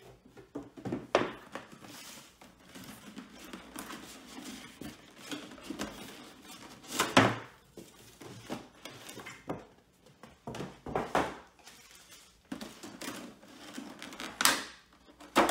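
Clear plastic blister tray and cardboard box being handled and pulled apart: irregular knocks, clicks and rustling plastic, with the loudest thunk about seven seconds in.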